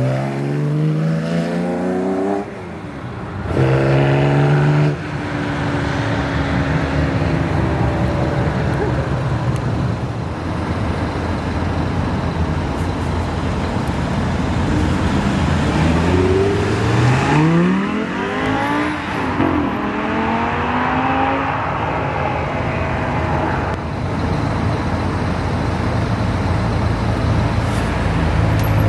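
Sports car engines accelerating hard away, the revs climbing steeply with a gear change about two and a half seconds in, then climbing again. A steady traffic hum follows, and a second car revs up and accelerates away around the middle.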